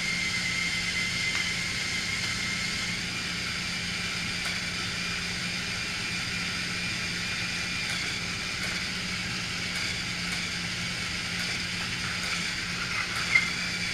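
Battery-powered TrackMaster toy train motors whirring steadily, a constant hum with a thin high whine over it. One sharp click near the end.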